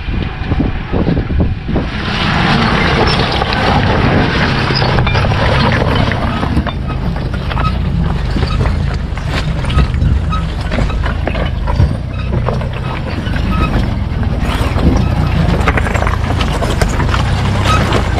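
Citroën 2CV driving over rough ground: the engine runs steadily under a continuous noise of tyres and wind, with many small rattles and knocks from the bodywork.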